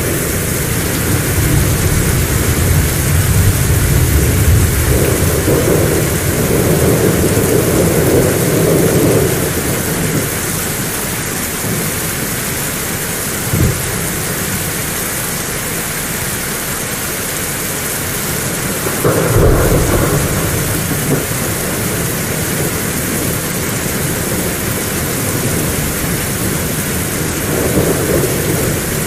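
Heavy rain falling steadily, with thunder rolling through it. There is a long low rumble in the first third, a brief sharp crack near the middle, a louder clap about two-thirds of the way through, and a softer rumble near the end.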